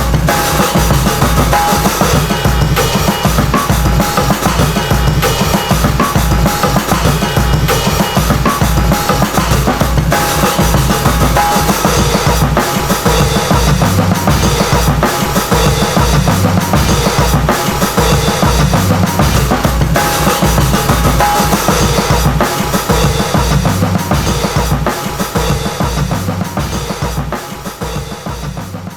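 Drum-led hip-hop instrumental: a drum kit groove of kick, snare and cymbals over a deep bass line. It fades out near the end.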